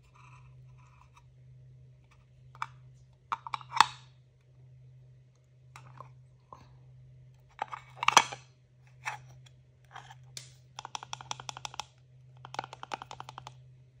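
Hands handling small plastic toys and packaging: scattered clicks and crinkles, two louder knocks, then two quick runs of rapid clicking near the end.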